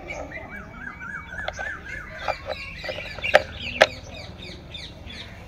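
Birds chirping and calling, with a run of quick wavering notes in the first two seconds. A few sharp clicks and knocks come from handling a toy tractor's wheel and axle, the loudest two close together about three and a half seconds in.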